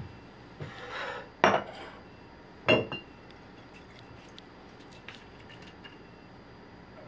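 Stainless-steel bar tools (jigger, shaker tin and strainer) knocking as they are picked up and set down on a kitchen counter: two sharp clanks, the second with a brief metallic ring. After that only a few faint small clicks as a glass vodka bottle is handled.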